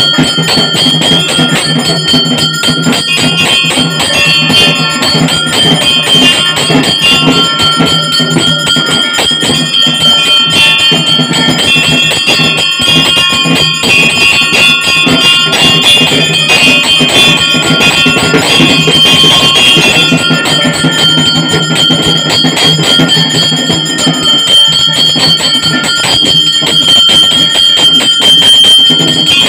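Pooja hand bell rung rapidly and without pause during the lamp offering, a dense metallic clatter of strikes with a steady high ringing tone over it.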